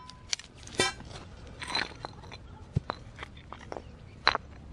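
Steel pry bar knocking and scraping against a saw-cut concrete curb, a series of sharp knocks with gritty crunches as a wedge of the curb is broken loose.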